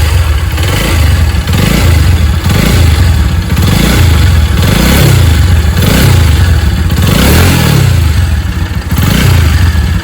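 Bajaj Pulsar 200 single-cylinder engine revved in repeated short blips, its pitch rising and falling about seven times, with a clatter from the cylinder head. The owner takes the abnormal head noise for a worn camshaft bearing.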